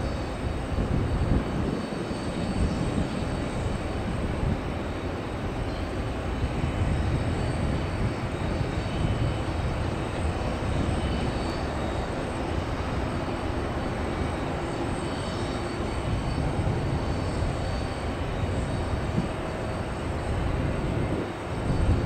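Steady rumbling noise of an arriving Airbus A330-200 airliner's jet engines, with no sharp events.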